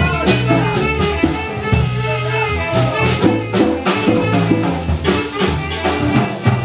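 Live jazz band playing a Latin-feel standard, with a brass horn over the drum kit.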